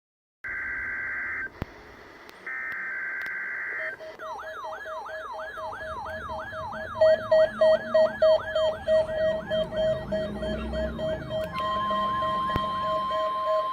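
NOAA Weather Radio alert signalling: two short buzzy digital SAME header bursts, then an electronic alarm of repeating rising whoops about three a second over a pulsing beep. Near the end a steady single-pitch warning alarm tone joins in, marking a required weekly test.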